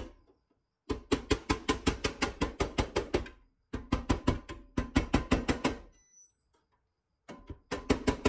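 Rapid tapping of a soft-face mallet on a white plastic drift held against the pressed-steel body of a 1961 Tonka toy ambulance, about seven taps a second, in three runs with short pauses between.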